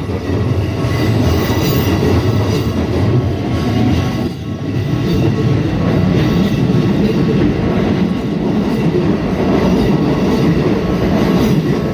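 Keikyu Main Line train running over the level crossing: a loud, steady rumble of wheels and cars, with a few thin high steady tones above it and a brief dip about four seconds in.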